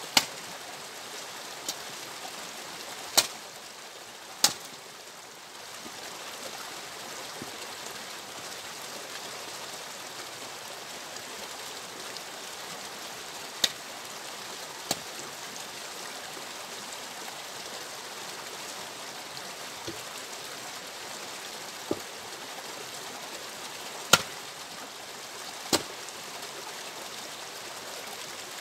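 Axe splitting firewood logs on a chopping block: about ten sharp cracks at irregular intervals, some coming in pairs a second or so apart. A steady rushing noise lies under them throughout.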